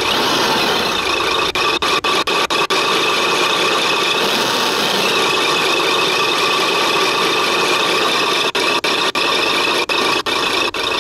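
RC truck's electronic engine-sound module playing a simulated truck engine idling through its small loudspeaker, turned up to maximum volume. The sound is steady and loud, with a thin bottom end, and cuts out for split seconds a few times.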